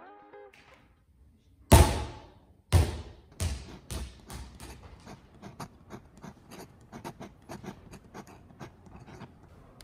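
A basketball bouncing on a sports-hall floor: two loud bounces that ring in the hall, then bounces coming faster and quieter as the ball settles into small rapid taps.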